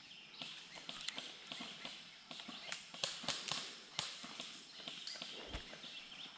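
Footsteps shuffling and crunching through dry leaves on a forest floor: a run of short, irregular crackles and clicks, busiest about halfway through.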